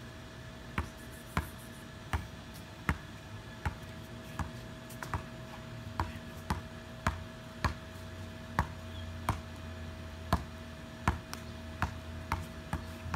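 Basketball being dribbled on a concrete slab: a steady run of sharp bounces, roughly one and a half a second and slightly uneven.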